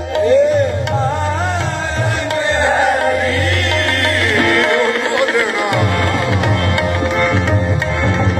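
Qawwali music: tabla drumming under a wavering melodic line. The drums drop out for about a second, roughly five seconds in.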